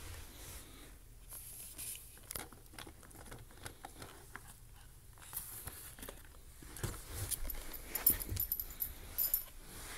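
Corgi puppy rummaging in a tight corner: irregular scratching, clicking and rustling, busiest near the end.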